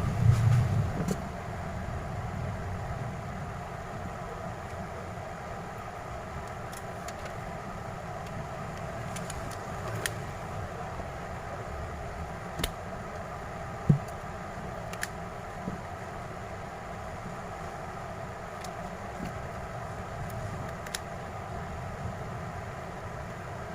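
Steady background hum with a handful of small, sharp clicks scattered through it, the loudest about fourteen seconds in.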